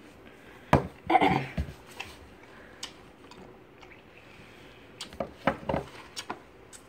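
Scattered clicks and light knocks of small plastic candy containers handled on a wooden table, with a short vocal outburst a little after one second in and another cluster of clicks about five seconds in.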